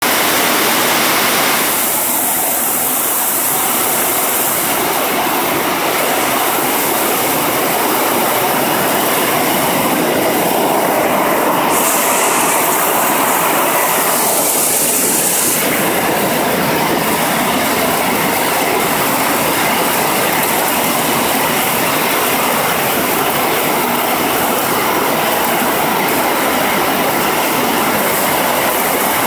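Heavy tropical rain pouring down, a loud steady hiss of rainfall that holds without a break.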